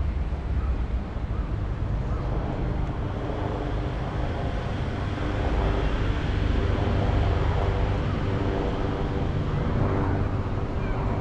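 Street traffic: vehicle engines running and tyres on the road in a steady rumble, growing a little louder about halfway through, with low wind buffeting on the microphone.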